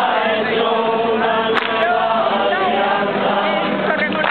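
A group of people singing together in chorus, several voices blending into one sustained, held tune. There is a single brief click about a second and a half in.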